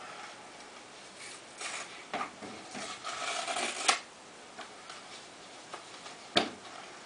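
Brown paper packaging being opened by hand: a couple of seconds of rustling and tearing that ends in a sharp snap, then scattered small handling ticks and one more sharp click.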